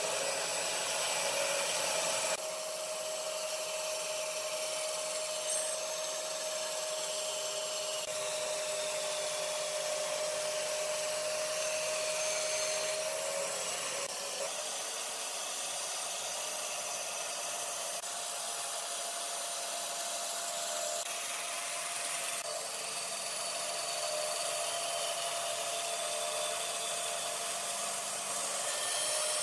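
Band saw running and cutting through a thick wooden plank along a curve: a steady whir with the hiss of the blade in the wood and a steady motor hum, shifting suddenly in tone about 2 s and 14 s in.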